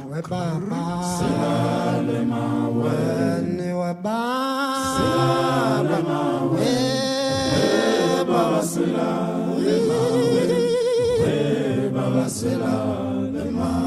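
Background music: voices singing in a chant-like style over steady low held tones, with one wavering sustained note about ten seconds in.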